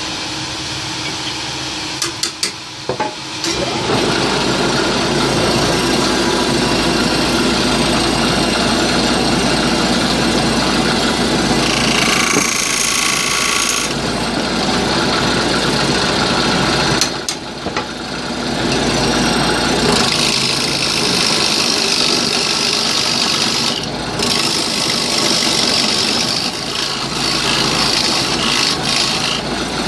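Wood lathe running with a steady motor hum while a hand-held turning tool cuts the face of a spinning wooden disc, a rasping, hissing scrape that grows louder in long stretches as shavings fly off. There are a few sharp clicks near the start.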